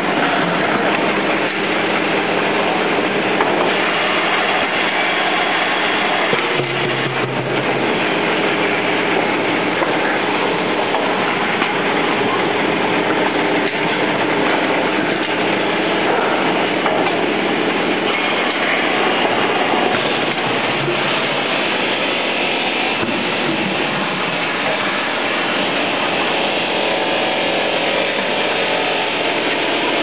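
Five-gallon water-bottle washing machine running, a steady din of machinery and spraying water.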